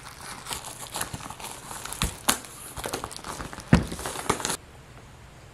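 Rustling, crinkling handling noise of a Filtrete 1900 cardboard-framed air filter being turned in the hands and knocked against a table, with a few sharp knocks. It stops suddenly about four and a half seconds in.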